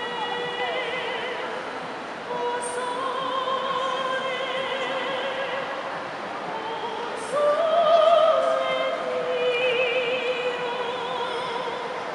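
A female gondolier singing in an operatic style, holding long notes with vibrato. About seven seconds in her voice steps up to a louder, higher note, then settles back down.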